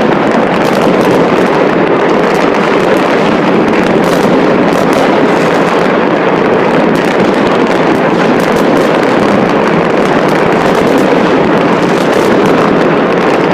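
Dense, continuous crackling of many fireworks and firecrackers going off at once, countless overlapping pops merging into one steady wall of noise without a break.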